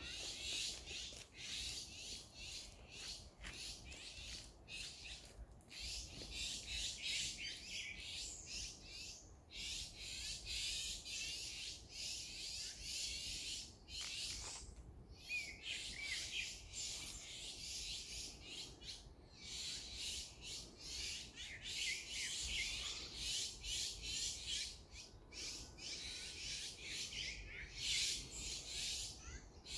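Many birds chirping and twittering together in a dense, high-pitched chorus, broken by brief pauses every few seconds.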